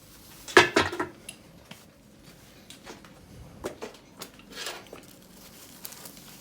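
Hard small objects, metal parts and tools, clattering and clinking as they are handled: a cluster of sharp knocks a little over half a second in, the loudest sound, then scattered single clinks.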